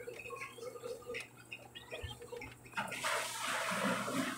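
Faint light clicks, then about three seconds in a steady hissing rustle as the phone is handled on its plastic bubble-wrap sheet and a USB cable is plugged into its port.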